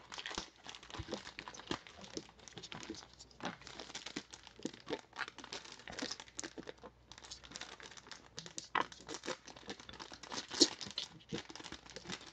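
Clear plastic bag of a trading-card repack crinkling and tearing as it is peeled open by hand, in irregular crackles with one louder crackle near the end.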